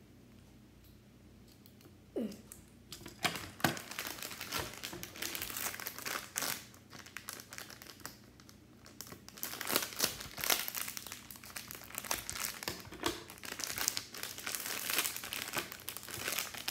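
Plastic surprise-pack wrapper crinkling and crumpling as it is handled and pulled open by hand. It comes in crackly bursts starting about three seconds in, loudest around the middle and near the end.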